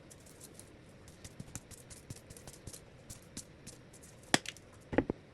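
Faint irregular ticking and tapping of seasoning bottles being handled. There is a sharp click about four seconds in and a quick double click near the end, like a flip-top cap snapping.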